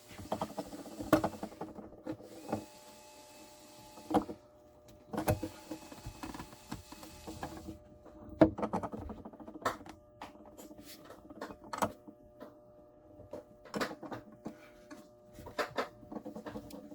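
Irregular clicks, taps and knocks of tools and parts being handled during guitar repair work, some in quick clusters, over a faint steady hum.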